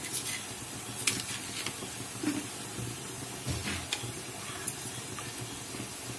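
A steady hiss from a pot of sambar cooking in an open aluminium pressure cooker, with a few sharp clicks and knocks as a spoon and ladle touch the pot while it is being stirred. The loudest click comes about a second in.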